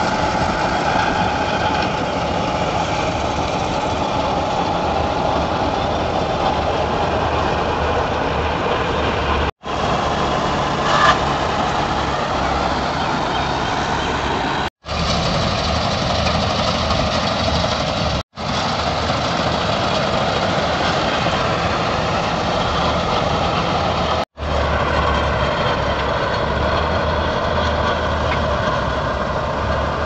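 Tractor-mounted Standard TSC-513 combine harvester working, driven by the John Deere 5310 tractor's diesel engine: a steady drone of engine and threshing machinery. The sound is cut off very briefly four times.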